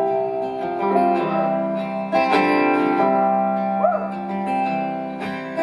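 Live band playing an instrumental passage between sung lines: guitars strumming over long held chords, with a short sliding note about four seconds in.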